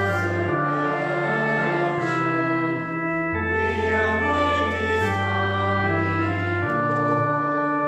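Organ playing slow held chords over a low bass line, the chord changing every second or two.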